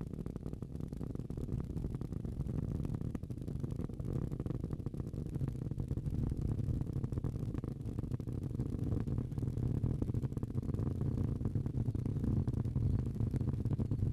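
Low, steady rumble of a Falcon 9 first stage in powered ascent, its nine Merlin engines firing as the vehicle passes through max Q.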